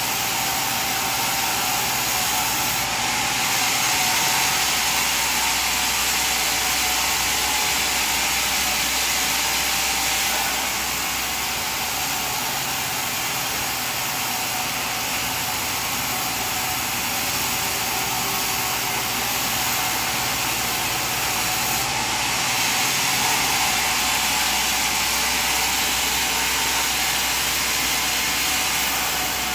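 Sawmill saw running and cutting through wood, a steady high hissing whine that swells louder twice as the blade works through the log.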